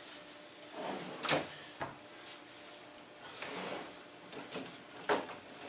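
Wooden kitchen-cabinet drawers on Blum drawer slides being pulled open and pushed shut, sliding with a few knocks as they meet the cabinet; the loudest knock comes about a second in, another near the end.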